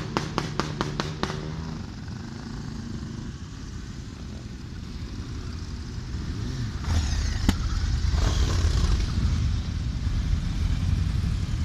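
Motorcycles riding past one after another at parade pace, engines rumbling. A rapid, even run of sharp pops over a steady engine note in the first second, and a louder engine passing close from about seven seconds in.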